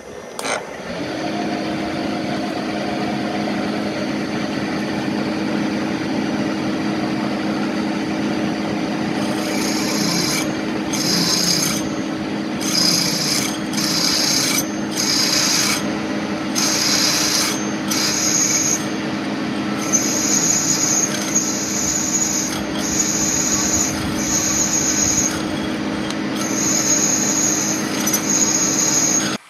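Milling machine spindle running with a steady hum while a twist drill cuts a bolt hole through a metal driveshaft flange. From about a third of the way in, the drill's cutting noise comes in repeated high-pitched spells of about a second each, more regular near the end.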